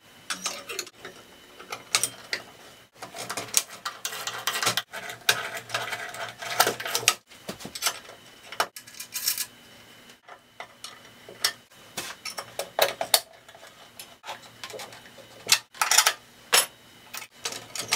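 Small metal parts and hardware clinking and rattling as they are handled and fastened onto a treadle scroll saw: irregular sharp clicks, with denser clattering a few seconds in and again near the end.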